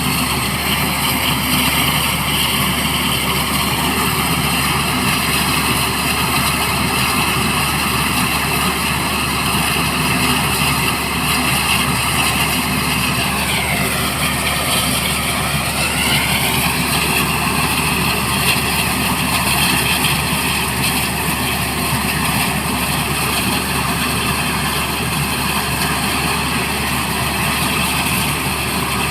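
Black Hawk helicopter engines and rotor running steadily, a loud even roar with a high turbine whine. About halfway through, the whine dips in pitch and rises back over a couple of seconds.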